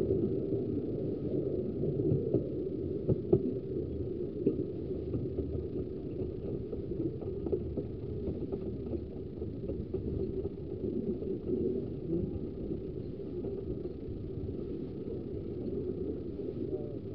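Ravenglass and Eskdale Railway 15-inch gauge train running along the track: a steady rumble of the carriage with a few sharp knocks in the first few seconds.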